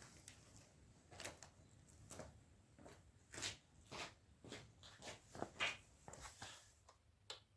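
Faint, irregular short scrapes and clicks, about a dozen, the loudest near the middle.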